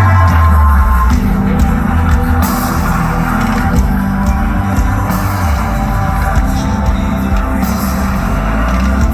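A rock band playing live at full volume: heavy rock with guitars, a low bass line that changes note every second or so, and drums hitting steadily over it.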